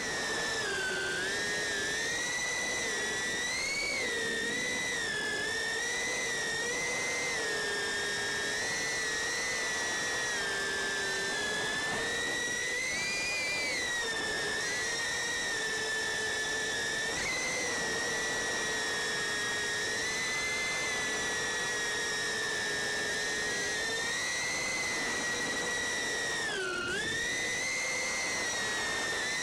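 GEPRC TinyGO whoop-style FPV quad's brushless motors and propellers whining steadily in flight. The pitch wavers up and down with the throttle and briefly drops near the end.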